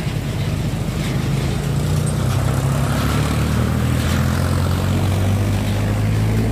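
An engine running with a steady low hum, getting a little louder over the first couple of seconds.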